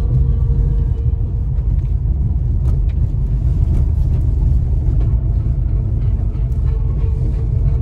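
Fiat Egea driving on a forest road: a steady low rumble of tyres and running gear, with scattered sharp clicks.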